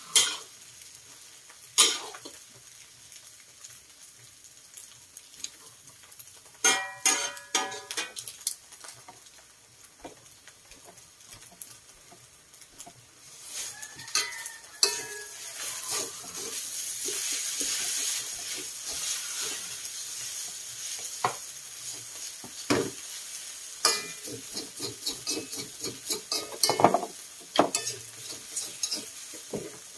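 Metal utensils scraping and knocking against steel woks as instant noodles are stir-fried, with the frying sizzling. A quick run of ringing clangs comes a few seconds in, and the sizzle swells louder through the middle.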